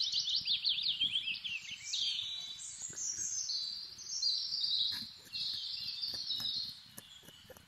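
A songbird singing high, rapid trilled phrases, one after another, until it stops about seven seconds in.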